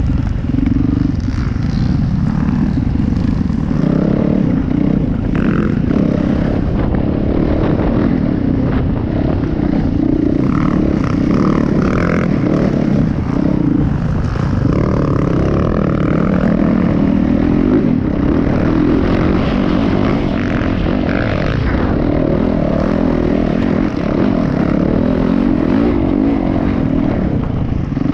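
Dirt bike engine running close up on the moving bike, its note rising and falling with the throttle as it rides up a grassy trail.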